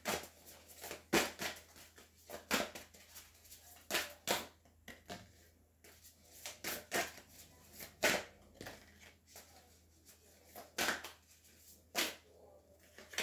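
Cards being handled and laid down on a table: a run of sharp, irregular clicks and slaps, at times several a second.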